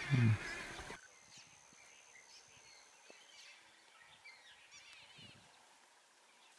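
About a second of louder outdoor noise with a short low thump at the start. It cuts to faint bush ambience with a few brief, high chirping animal calls.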